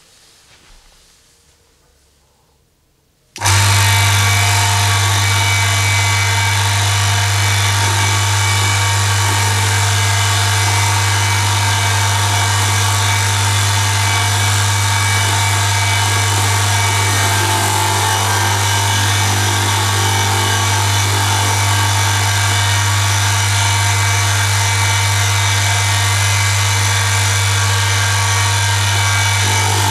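Electric motor of an oil friction-test rig switches on abruptly about three seconds in and runs steadily, with a strong mains hum and loud grinding of metal on metal as the test sample is pressed against the spinning oil-coated ring under a 2 kg lever weight.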